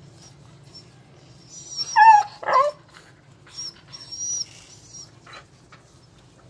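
A muzzled dog gives two short, loud yelping cries about two seconds in, the first falling in pitch, then softer whimpers, while ticks are being picked from around its head with tweezers.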